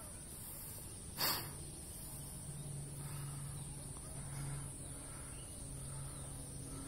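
Quiet rural outdoor ambience: a low steady hum with faint bird calls, and a brief rush of noise about a second in.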